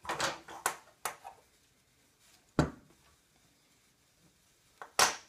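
Slingbow parts being handled on a wooden table: a few light clicks in the first second, then two sharp knocks about two and a half seconds apart as hard parts meet the wood.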